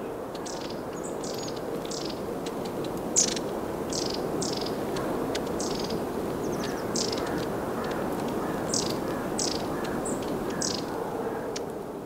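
Small songbirds giving short, thin, high-pitched calls, about two a second, over a steady low background rush.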